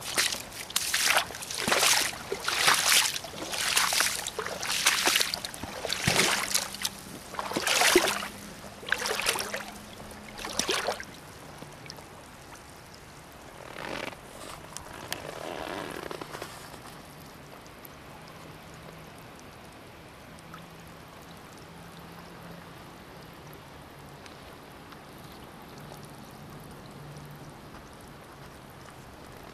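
Rubber boots, Soviet-made Red Bogatyr, squelching and splashing through wet grass and shallow floodwater, about one step a second for the first ten seconds or so. One more splash comes about fourteen seconds in, then a brief swirl of water, after which only faint steady outdoor noise remains.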